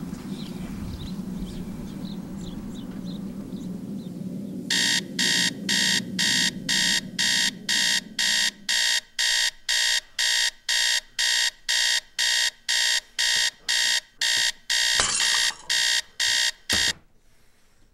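Electronic alarm clock beeping about twice a second, starting about five seconds in over a low hum that fades away. A couple of knocks near the end, then the beeping cuts off suddenly.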